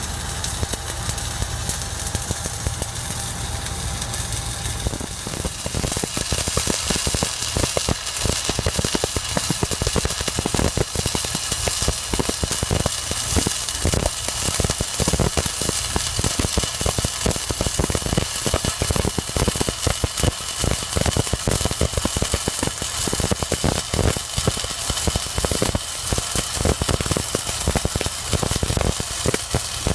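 Shielded metal arc (stick) welding on a steel pipeline joint: the arc crackles and sizzles continuously, becoming denser and louder about five to six seconds in. A steady engine hum sits underneath, plainest in the first few seconds.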